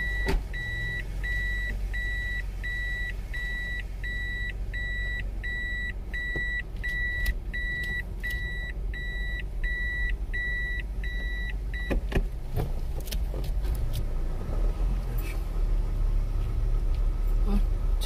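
A car's reverse-gear warning beeper sounding inside the cabin, a high steady beep about twice a second, over the low running of the engine; the beeping stops about two-thirds of the way through as the car comes out of reverse, leaving engine and road noise with a few clicks.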